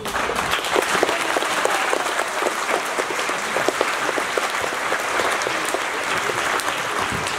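Audience of students, staff and guests applauding in a large hall, starting all at once and holding steady as many hands clap together.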